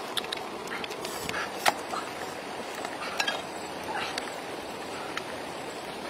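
Pan of food bubbling over a wood fire, with scattered light clicks and clinks. The sharpest clink comes a little under two seconds in.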